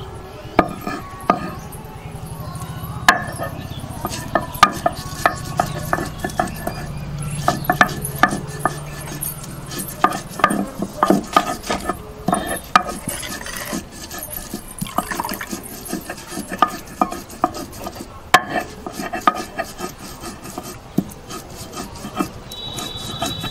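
Stone pestle knocking and grinding ginger into a paste on a sila, a flat grinding stone: irregular sharp knocks with rubbing and scraping in between.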